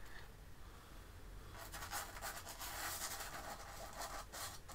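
Paintbrush scrubbing paint onto canvas in a run of short scratchy strokes, starting about a second and a half in.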